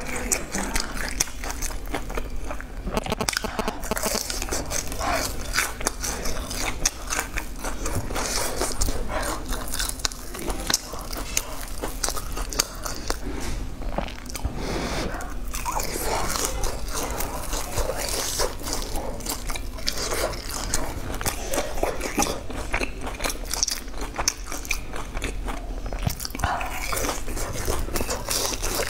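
Close-miked eating of golden fried balls: a continuous run of bites and chewing with crisp crunches and crackles of the fried crust, over a low steady hum.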